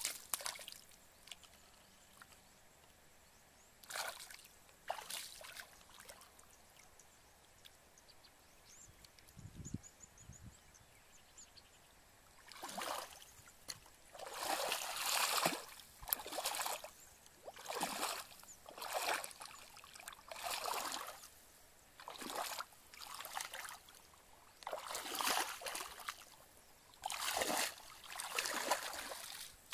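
Shallow muddy water sloshing and splashing as a person wades through it and works in it by hand: a few scattered splashes at first, a low thud about ten seconds in, then sloshing steps through the water at about one a second.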